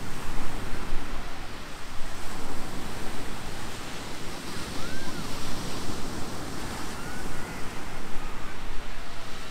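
Ocean surf breaking and washing up the beach in a steady wash of noise, with wind rumbling on the microphone. A faint short tone rises and falls about five seconds in.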